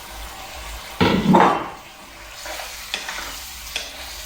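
Tomatoes and green chillies going into a karahi of lamb frying in hot oil: a sudden loud sizzle about a second in that dies down within half a second, then the mix stirred with two sharp taps of the spoon on the pan.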